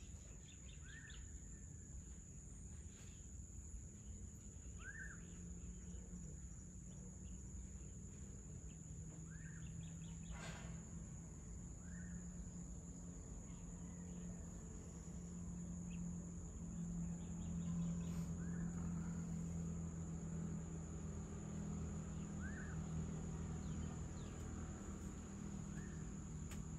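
Dusk outdoor ambience over forest: a steady high-pitched insect drone, with a bird repeating a short chirp every few seconds. Underneath runs a low steady hum that grows a little louder in the second half.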